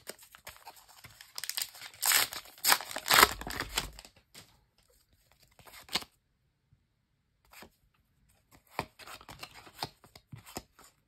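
Match Attax trading-card pack wrapper being torn open and crinkled, the tearing loudest about two seconds in. Near the end come lighter rustles and clicks as the cards are flipped through.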